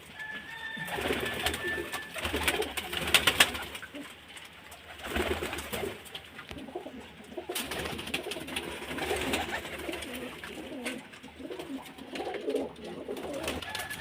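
Domestic pigeons cooing, with scattered clicks and knocks; the loudest comes about three seconds in.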